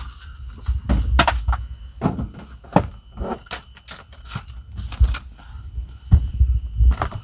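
Irregular thumps and knocks as a soft-sided suitcase is lifted, shifted and pushed into place on a folded-down bench seat inside a van, with rustling handling noise.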